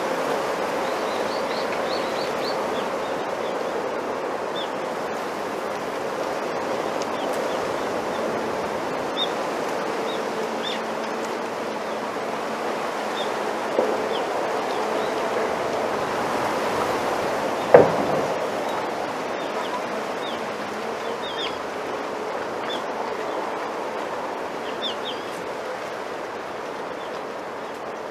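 Wind rustling through a bamboo grove: a steady hiss of moving leaves, with faint short high chirps scattered throughout. A single sharp click comes a little past the middle.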